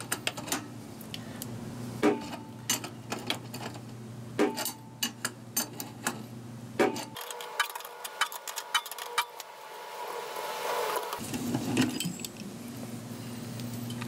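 Scattered metal clinks and taps of an adjustable wrench and vise-grip pliers against the pressure switch's brass fitting as the old switch is unscrewed from its standpipe. A steady low hum runs underneath.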